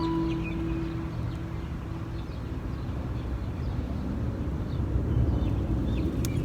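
The last guitar note of the song rings out and fades over the first two seconds, leaving outdoor ambience: a steady low rumble with a few faint bird chirps, more of them near the end.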